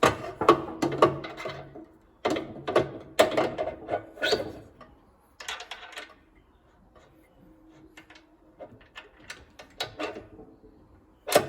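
Knocks and metallic clinks as the reconditioned tension roller's shaft is worked into place in a Pallmann Cobra floor sander, in irregular clusters with brief ringing. A quieter stretch falls in the middle, then more clinks come near the end.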